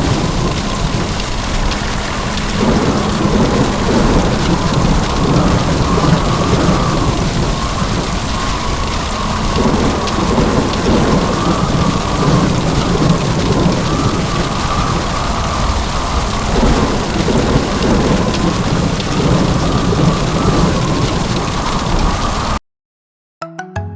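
Heavy rain pouring with rolling thunder rumbling underneath, loud and steady. It cuts off suddenly near the end, and a short bit of music follows.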